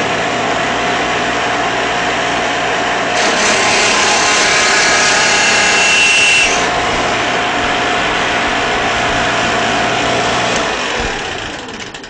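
Biscuit joiner mounted on a Shopsmith Mark V starting up and running with a steady hum. About three seconds in, its blade cuts a biscuit slot into the face of a board, and for some three seconds the sound grows louder and hissier. It then runs free again and winds down near the end.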